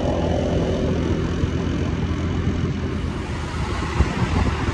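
Small motorcycle engine running on the move, with wind rushing over the microphone. The engine's note is plainest in the first second or so, then blends into the rush of wind and road noise.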